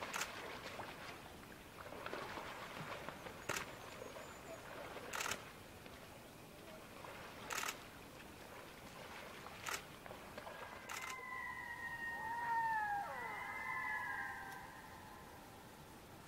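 Rushing splashes on the water with a few short sharp slaps, from mallard drakes fighting. About eleven seconds in come the loud wailing spring calls of red-throated loons: wavering, gliding tones from two overlapping voices, with one dropping sharply, lasting about three seconds.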